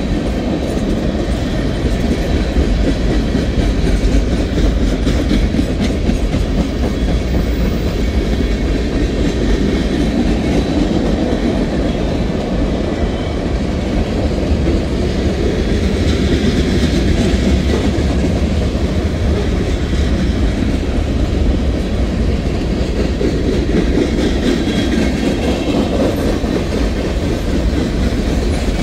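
Freight cars of a Norfolk Southern manifest train rolling steadily past, steel wheels running on the rails; the sound is loud, even and mostly low-pitched.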